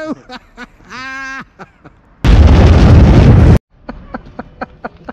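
Explosion sound effect edited in: a very loud blast of noise about a second and a half long, starting about two seconds in and cutting off abruptly into silence.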